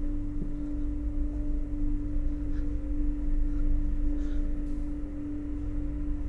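A steady, eerie drone: one sustained tone held over a low rumble. A few faint scuffs, like footsteps on the tunnel floor, sound under it.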